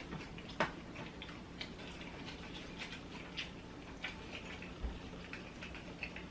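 Close-miked chewing of chicken McNuggets: irregular small wet mouth clicks and crackles, with a faint steady hum underneath and one soft low thump about five seconds in.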